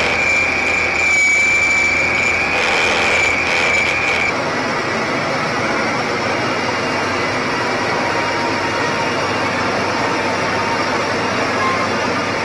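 Motor scraper running on the move, a loud steady mechanical drone with a high steady whine over the first four seconds; the sound changes abruptly about four seconds in to a steadier, even noise.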